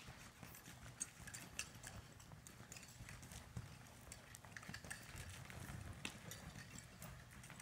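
Horse loping on soft arena dirt: faint, muffled hoofbeats with scattered sharp clicks.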